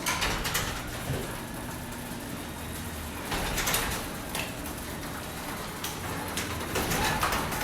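Bicycle being ridden on a test ride: tyres rolling with a steady rushing noise and low rumble, and a few sharp clicks or knocks, the loudest a little past three seconds in and again near the end.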